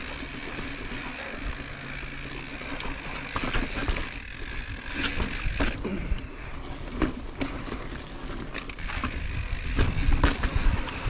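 2020 YT Izzo full-suspension mountain bike rolling slowly over slickrock: tyre noise and the rear hub's ratchet clicking, with sharp knocks and rattles from the bike over bumps in the rock, coming more often and louder near the end.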